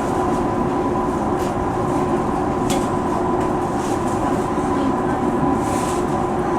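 Tokyu 5050 series electric train heard from inside the front car: a steady hum and rumble with two constant tones, and a couple of light clicks.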